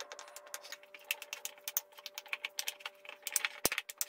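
Metal spoon clinking and scraping against a glass mixing bowl while stirring flour into a sticky curd-cheese dough: a quick, irregular run of clicks that gets busier in the second half.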